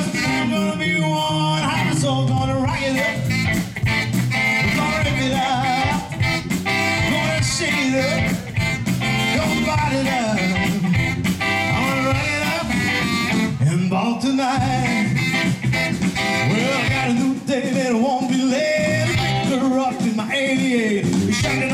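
Live rock and roll band playing an instrumental passage between sung verses, with saxophone, electric guitar and drums.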